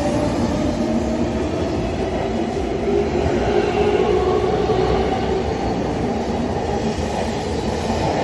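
Train running on the rails: a steady, loud rumble of wheels and running gear, with faint held whining tones over it.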